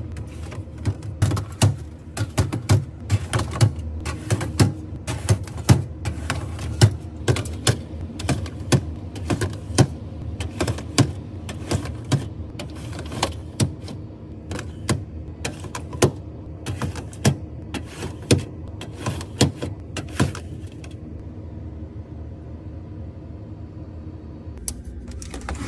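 Irregular clicks and knocks of containers and packages being picked up and set down while restocking a fridge, over a steady low hum; the handling stops about 21 seconds in.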